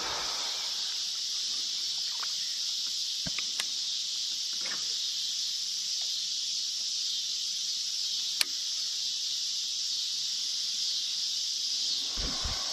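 Steady high-pitched insect chorus, with a few sharp clicks, the loudest about eight seconds in, and a brief low thump near the end.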